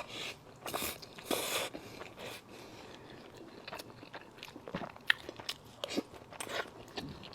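Close-miked eating sounds of someone eating braised pork rice: a few louder noisy bursts in the first two seconds, then chewing with many small wet mouth clicks.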